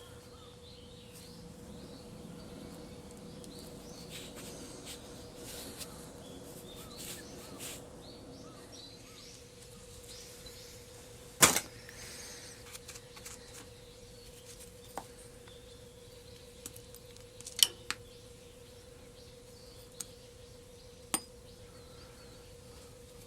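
Scattered sharp clicks and knocks from hand tools and parts being handled while a tractor's front axle is taken apart. The loudest comes about halfway through, with a few lighter ones later, over a steady faint hum.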